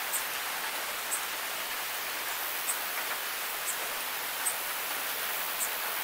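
Steady rain falling, an even hiss with a sharp drop tick about once a second.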